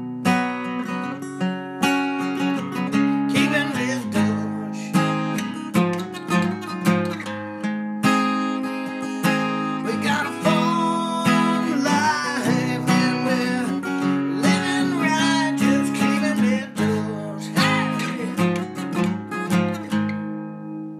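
Background music of a strummed acoustic guitar, fading out near the end.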